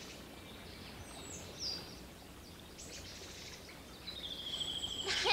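Faint open-air background with a few high bird chirps. A noise grows louder near the end as a person approaches at a run.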